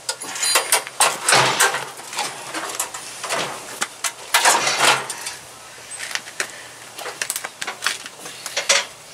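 Scattered metal clanks and knocks with a few longer scrapes, from hand work on a riding mower's Onan twin-cylinder engine as the unbolted engine is worked loose in its frame. The two loudest scrapes come about one and a half seconds in and again around four and a half seconds.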